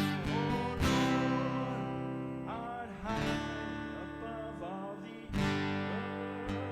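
Live worship music: an acoustic guitar strumming chords, with a voice singing over it.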